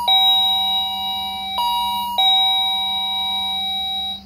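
Wireless door chime ringing its electronic ding-dong, like the standard chime boxes. A lower note sounds, then a higher note and another lower one, each ringing on until all cut off suddenly about four seconds in.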